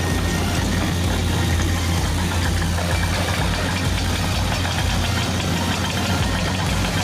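Remote-control toy excavator running with a steady low hum.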